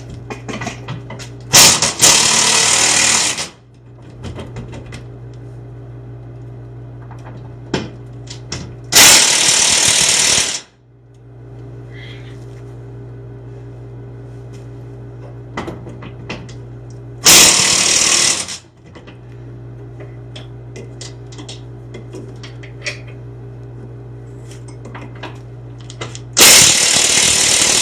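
Impact wrench driving bolts tight in four bursts of a second and a half to two seconds each, several seconds apart, over a steady low hum.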